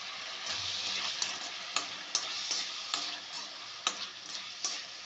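Green chillies, tomatoes, cumin seeds and tamarind frying in hot oil in a pan: a steady sizzle with sharp crackles and spits about every half second.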